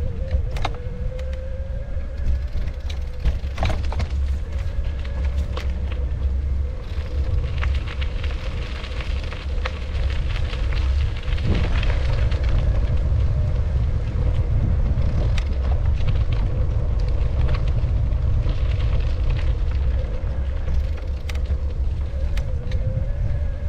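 Wind buffeting the microphone with a heavy, steady rumble, over a faint steady hum and a scattering of sharp clicks.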